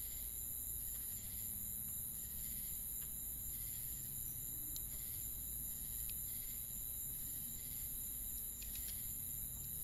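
Night-time insect chorus: crickets chirping steadily in a high, even drone with a faint regular pulse, over a low rumble of background ambience.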